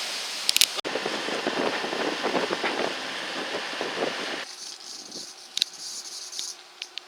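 Wind and rushing water aboard a sailboat under sail in about 18 knots of wind, a steady hiss with some knocks. About four and a half seconds in it drops abruptly to a quieter hiss with a few sharp clicks.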